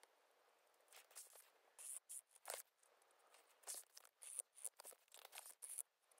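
Fine-tip ink pen drawing on sketchbook paper: faint, quick scratchy strokes one after another, with short pauses between them.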